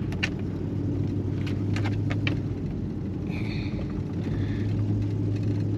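Steady low rumble of a vehicle's engine and road noise heard from inside the cabin, with a few light clicks and a brief faint high whine about three and a half seconds in.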